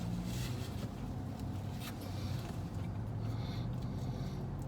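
Steady low hum of a vehicle's idling engine, with a few brief rustles and scrapes of a spoon and plastic food bowl.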